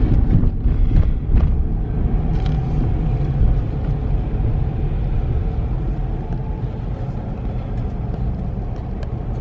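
Steady low rumble of a car's engine and road noise heard inside the cabin, easing off gradually.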